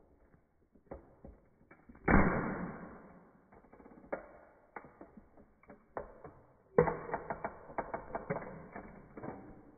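A toy model car cracking and crunching as a high-heeled shoe presses down on its roof. A loud crack comes about two seconds in and fades, then scattered sharp snaps, and a rapid run of cracks starts near seven seconds and thins out near the end.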